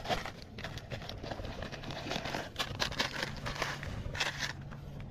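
Cardboard snack boxes and paper packaging being handled and pulled apart: an irregular run of crinkles and crackles, with a faint steady low hum underneath in the second half.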